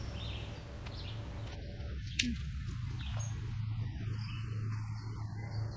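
Steady low outdoor rumble with a few faint bird chirps near the start and one sharp click about two seconds in.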